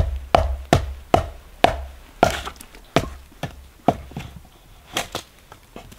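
Dry cedar being chopped with a hatchet to shape a bow-drill spindle: a quick run of about a dozen sharp wooden chops, a little more than two a second, the later ones lighter.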